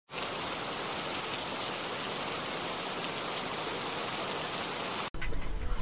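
Steady rain falling, an even hiss that cuts off abruptly about five seconds in.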